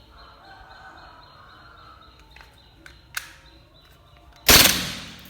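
WE Glock 23 gas blowback airsoft pistol test-fired: a loud, sharp report about four and a half seconds in that trails off over about a second, with a fainter click a little over a second before it.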